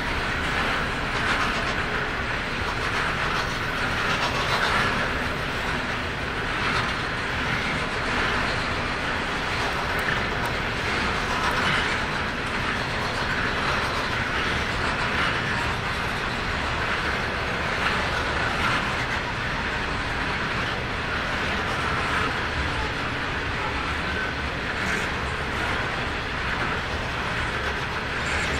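A long train of loaded coal hopper wagons rolling steadily past: a continuous rumble of wheels on rail, with light wheel clatter.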